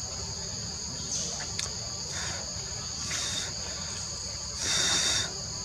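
Forest insects droning in a steady high-pitched chorus, with louder buzzy swells coming in a few times, the loudest about five seconds in.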